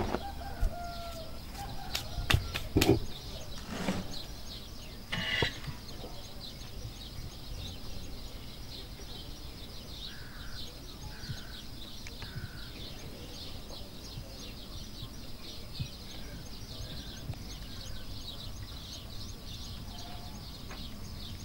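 Outdoor ambience of small birds chirping steadily and rapidly, with a few short bird calls about ten to twelve seconds in. A few sharp knocks come in the first six seconds.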